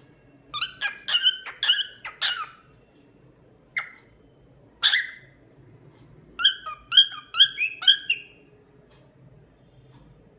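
Cockatiel chirping in short, pitched calls: a quick run of four or five chirps, two single chirps, then another quick run of about five.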